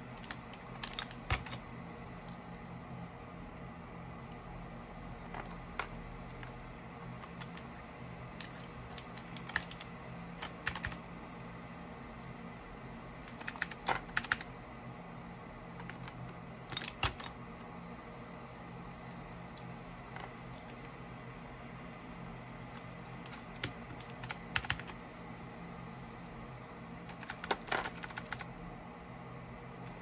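Keychron K8 Pro mechanical keyboard's keys clacking in short, irregular clusters of a few strokes each, with pauses of several seconds between.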